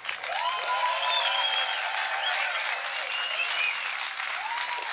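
Audience applauding steadily, with a few long calls rising and falling over the clapping.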